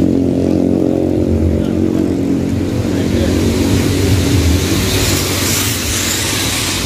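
A truck's diesel engine idling steadily, with a hiss that builds up about halfway through.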